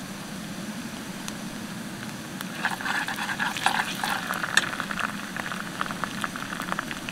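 Chopped onions and whole spices sizzling in oil in a steel pan. From about two and a half seconds in a metal spatula stirs them: the sizzle crackles louder, with a few sharp scrapes and clinks against the pan.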